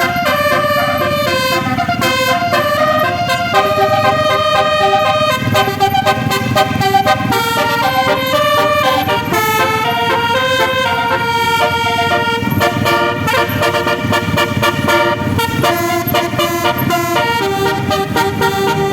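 Indonesian bus basuri "telolet" musical horn playing a tune of held notes that change pitch every half-second or so, over the steady low rumble of the bus engine.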